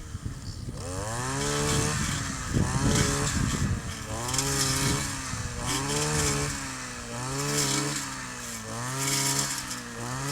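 Kioritz 260 two-stroke brush cutter engine being revved up and down repeatedly, its pitch rising and falling about every two seconds.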